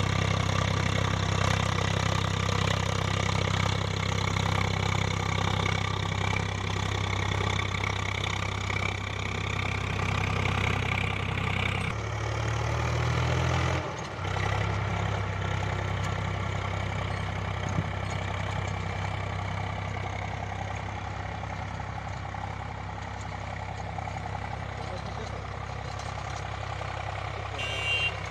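Swaraj 744 XT tractor's diesel engine running steadily under load while pulling a rotavator through the soil. The engine note shifts for a couple of seconds about halfway through.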